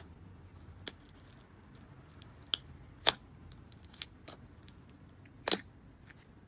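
Thick clay slime pressed and poked with fingers in a cup, giving sharp clicks and pops of trapped air. One loud pop comes about three seconds in and another near the end, with fainter crackles between.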